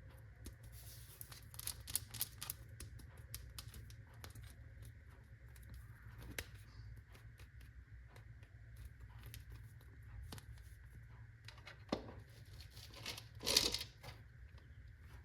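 Faint scattered clicks and crinkling from small objects being handled, with a sharp click about twelve seconds in and a louder rustle just after it.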